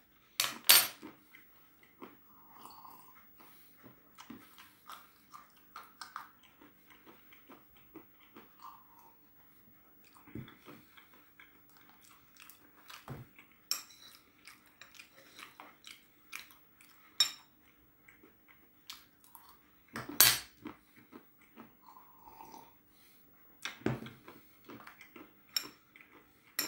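A person chewing crunchy salted peanuts close to the microphone: scattered small crunches and clicks, with a few louder knocks about a second in, near the middle and near the end.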